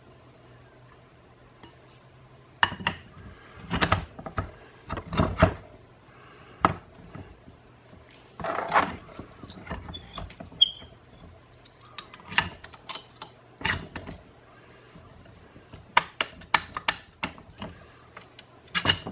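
Come-along (cable power puller) and its new steel handle being handled and worked: irregular metal clanks, clicks and knocks, several in quick groups, over a faint steady low hum.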